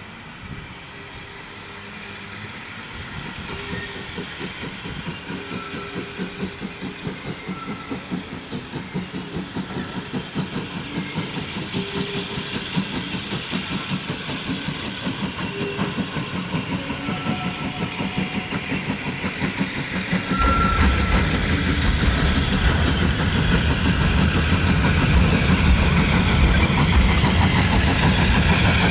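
Steam tank locomotive working a train of coaches, its exhaust beating a steady chuff that grows louder as it approaches. A deeper rumble joins about twenty seconds in as it draws near.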